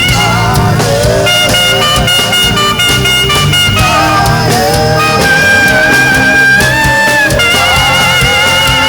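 Saxophone playing a slow worship melody in long held notes, with a quick run of notes about a second in, over a steady band accompaniment with bass.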